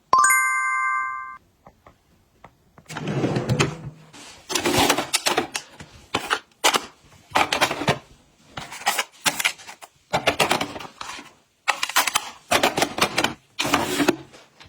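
A short ringing ding at the start, then a run of short rustles, clicks and clatters, one after another, of containers and packaging being handled and set down while restocking.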